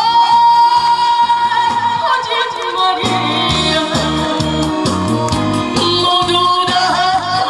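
A woman singing live into a handheld microphone over a musical backing track. She holds one long note for about two seconds at the start, and the low beat of the accompaniment drops back and returns about three seconds in.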